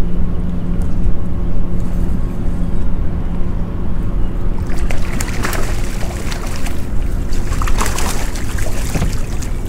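A hooked ballan wrasse played to the side of a small boat on a rod and reel: steady reel winding over a low rumble, then splashing and sharp clatter at the surface from about five seconds in as the fish comes to the boat.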